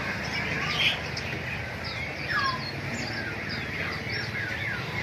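Many caged birds chirping and calling at once, a busy overlapping chorus of short chirps and sweeping calls, with one louder call about a second in.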